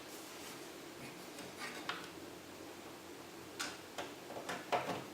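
Light clicks and taps of a graphics card being handled and fitted into a PC case, a few scattered ones early and more, closer together, near the end.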